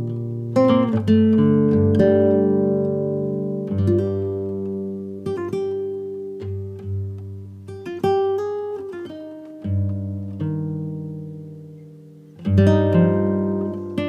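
Background music: a slow acoustic guitar piece, with chords strummed and left to ring out and single notes plucked between them.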